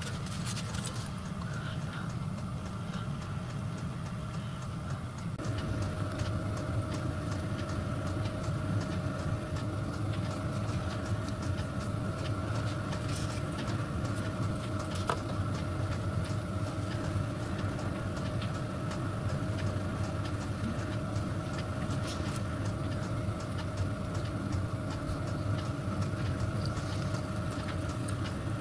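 Steady hum of a workshop machine's electric motor running, with a steady whine joining about five seconds in. A few light clicks are heard over it.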